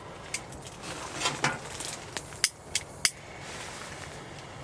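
A few sharp metallic clicks and clinks as a small sheet-metal wood stove's firebox door is handled, with a brief rushing sound about a second in.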